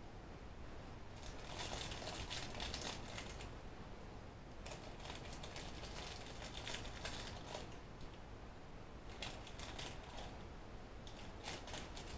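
Crinkling and light clicking as small plastic craft items are handled, in three spells of a couple of seconds each.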